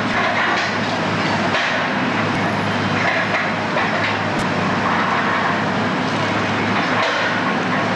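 Heavy machinery running steadily, its engine giving a constant low hum under a continuous rattling, grinding clatter.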